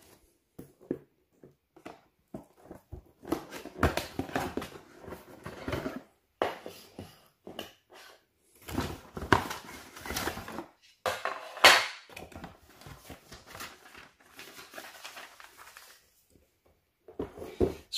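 Unboxing sounds: a cardboard box being opened and handled, and plastic sprinkler parts and a paper instruction sheet taken out and set down on a wooden table. Irregular rustles, scrapes and knocks, with a sharper scrape or knock about two-thirds of the way through.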